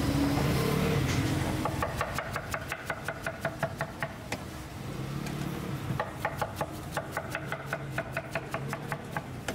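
Cleaver chopping through crisp guava onto a wooden cutting board: rapid, even knocks about five a second, in two runs, the first starting about two seconds in and the second about six seconds in.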